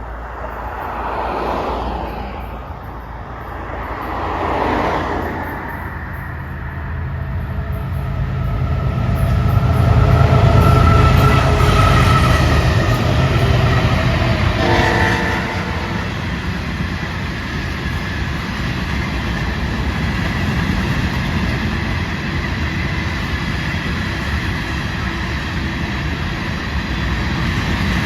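A Florida East Coast Railway freight train passes, led by two GE ES44C4 diesel locomotives. Their engines build to a heavy rumble about ten seconds in, with the horn sounding as they go by. After that the freight cars' wheels roll steadily over the rails with a clickety-clack.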